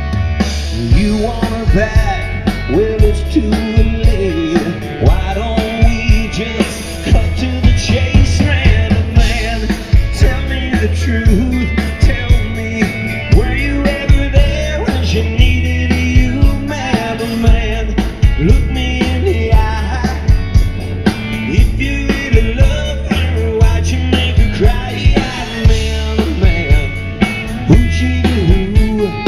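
Live rock band playing an instrumental stretch of a country-rock song, with drums keeping a steady beat under bass and electric guitar.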